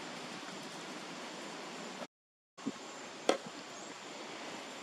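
Steady outdoor background hiss that drops out completely for about half a second at an edit, followed by a faint click and then one sharp knock.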